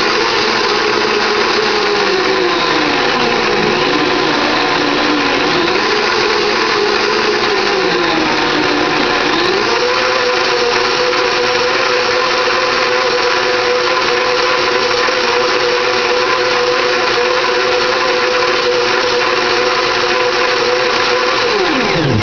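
Blendtec high-speed blender running at full power, blending hemp seeds and water into milk. The motor pitch dips and recovers a few times in the first half, then holds steady, and the motor winds down at the very end.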